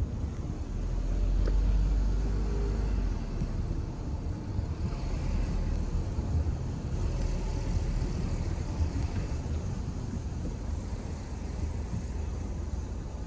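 Car driving along: a steady low rumble of tyres and engine, swelling louder for a couple of seconds about a second in.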